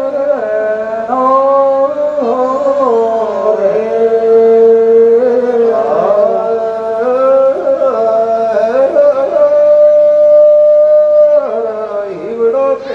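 Rajasthani Teja gayan folk singing: long, drawn-out notes held for seconds at a time and sliding smoothly from one pitch to the next, falling away near the end.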